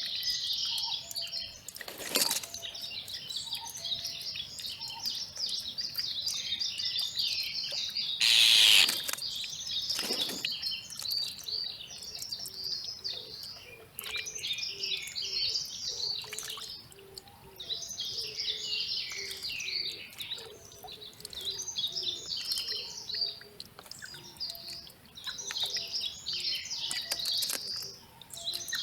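Wild songbirds chirping and twittering densely and without pause. A few brief louder bursts cut through, the loudest about eight and a half seconds in.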